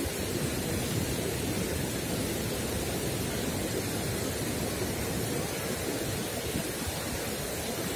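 Steady rushing of a fast-flowing river running over shallow rapids.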